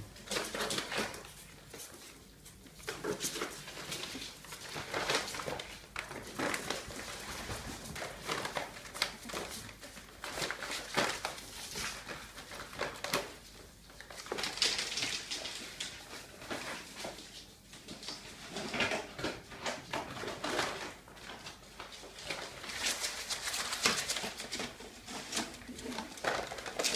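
Ferrets scrabbling over and burrowing under a chicken-feed sack: irregular rustling and crinkling of the sack mixed with claw scratches on the tiled floor, coming and going in short flurries with brief lulls.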